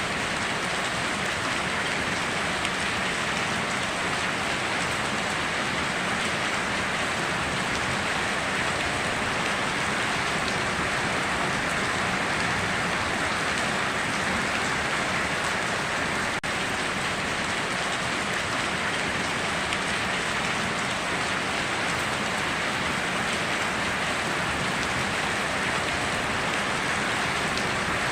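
Steady rainforest rain falling, an even, unbroken hiss with no thunder.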